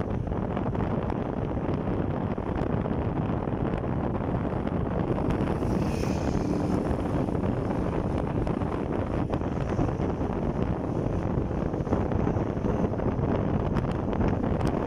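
Wind rushing over the microphone on a moving motorcycle, a steady dense noise with the bike's engine and road noise blended underneath.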